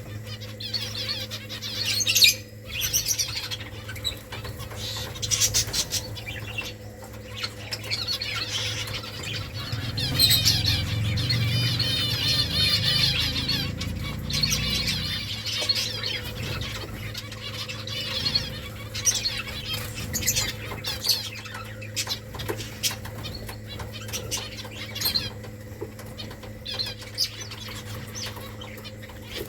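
Finches chirping and twittering, with wing flutters and short clicks between the calls; a dense burst of twittering runs from about ten to fifteen seconds in. A steady low hum sits underneath.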